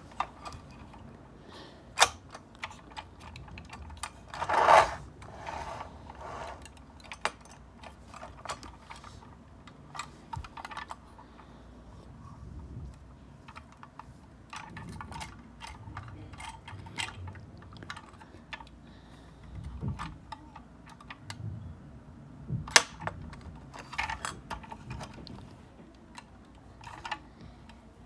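Irregular small clicks and plastic clatter from a toy front-loader garbage truck being worked by hand, its lift arms and forks clicking as a toy dumpster is raised over the cab and lowered, with a louder rattle about five seconds in.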